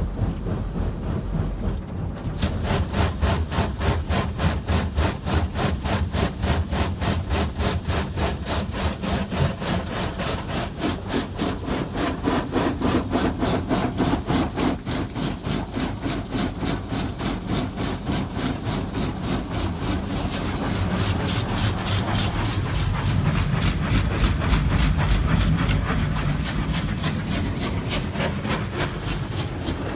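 AUTEC EV-2 automatic car wash working over the car, heard from inside the cabin. About two seconds in, a fast, even pulsing rasp starts as the wash sweeps along the body and keeps going, growing a little louder later on.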